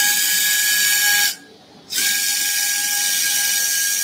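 Surgical power wire driver driving a 0.062-inch pin (Kirschner wire) across a tibial osteotomy into bone: a steady whine with hiss that stops about a second in, pauses briefly, and starts again.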